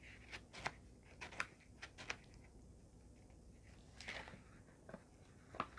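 Pages of a hardback book being leafed through: a scatter of soft paper flicks and rustles, with a longer page-turn swish about four seconds in.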